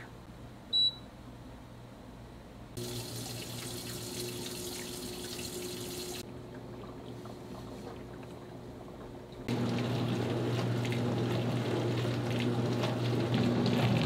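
A short electronic beep from the COMFEE CDC17P2AWW countertop dishwasher's control panel, then the machine running its wash: a steady pump hum with water splashing and spraying inside the tub. The sound starts about three seconds in and gets louder near ten seconds.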